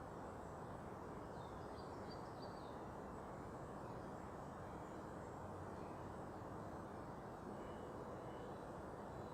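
Faint, steady low rumble of distant traffic, with a few faint high bird chirps about one and a half to three seconds in and another short call near the end.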